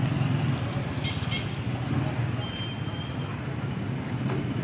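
Street traffic with a motorcycle engine running close by: a steady low hum.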